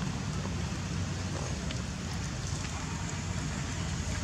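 Steady low rumbling background noise, with a few faint ticks.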